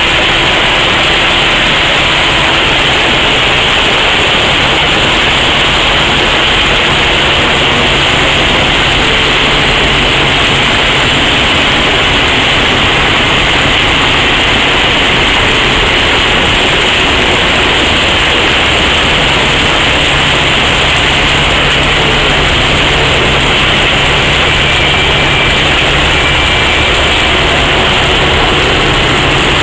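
Plasser & Theurer SSP 2005 SW ballast regulator working along the track at close range. Its engine hums low beneath a loud, steady din from the plough blades and the rotating sweeper brush moving ballast stones.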